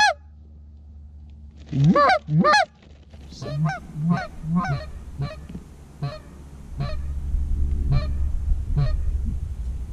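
Canada goose honking: two loud, close honks about two seconds in, then a run of quieter honks roughly every half second to second. A low rumble builds underneath from about seven seconds in.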